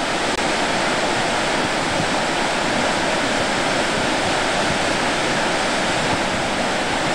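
Whitewater rapids rushing through a narrow rocky gorge: a steady, loud wash of water noise.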